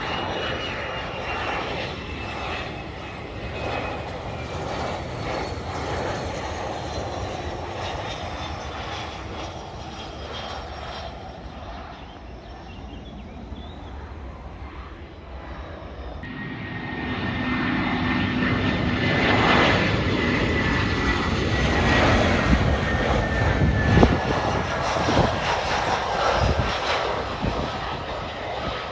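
Jet airliner engines on approach to land: a steady rushing noise with a thin whine falling slowly in pitch. About 16 seconds in the sound steps up louder as an Airbus A320-family jet comes in close, its engine whine gliding slowly down.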